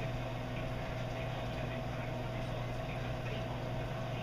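Steady electric hum of reef aquarium equipment, such as the circulation and return pumps, with an even low hiss of moving water.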